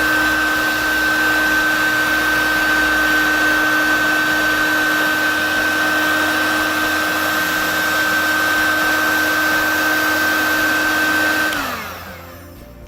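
Electric heat gun blowing steadily with a fan whine, heating a glued-on rubber bike part to soften it. About a second before the end it is switched off and the whine falls in pitch as the fan winds down.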